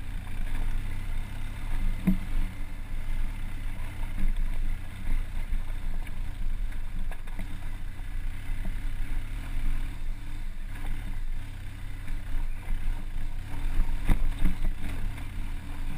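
Off-road vehicle engine pulling steadily in low gear up a rocky trail, a continuous low rumble, with a few sharp knocks from the rough ground, the clearest about two seconds in and again near the end.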